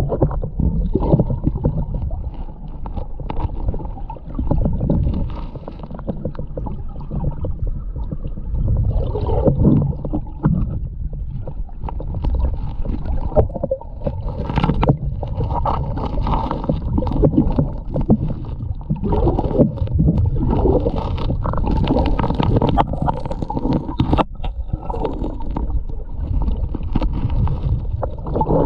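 Muffled water rumbling and gurgling, heard through a camera housing submerged in a shallow creek, with many short clicks and scrapes of stones and gravel as a gloved hand digs in the creek bed.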